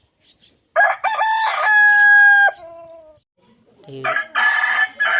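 Rooster crowing twice. The first crow starts about a second in, climbs in steps and is held long on one pitch before breaking off. A second, harsher crow starts near the end.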